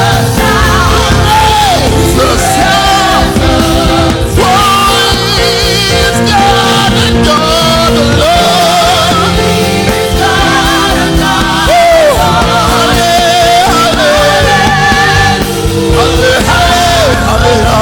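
Gospel worship song with a band and sung vocals, the lead voice sliding and wavering in melismatic runs over steady accompaniment.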